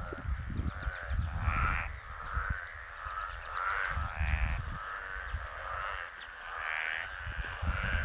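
A breeding chorus of many frogs calling from a pond, with raspy, pulsed calls overlapping and repeating about once a second. Wind rumbles on the microphone underneath.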